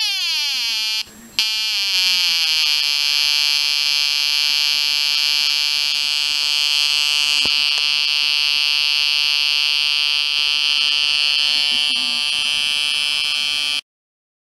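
555 timer astable oscillator driving a small speaker with a harsh square-wave buzz. Its pitch slides down over the first few seconds as the potentiometer is turned, cutting out briefly about a second in. It then holds a steady lower buzz and cuts off abruptly near the end.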